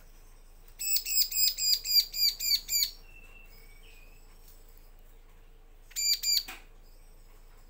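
Bar-winged prinia (ciblek) calling: a fast run of about ten sharp, high chirps over two seconds, then after a pause a shorter burst of three.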